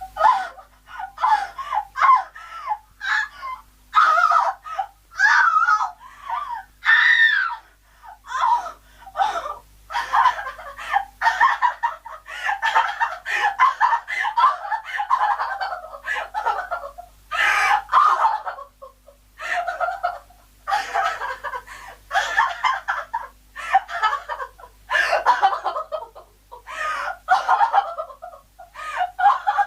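A woman crying hysterically, sobbing and wailing in quick, ragged bursts that barely pause.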